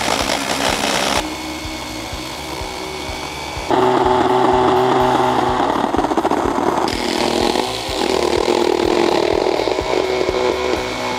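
Power saw running and cutting into the shell of a SHOEI GT-Air 3 motorcycle helmet, in several stretches whose pitch and level change abruptly, with background music.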